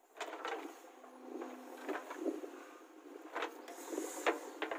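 JCB 3DX backhoe loader's diesel engine running while it digs, with about six irregular sharp knocks and clunks as the bucket works the soil.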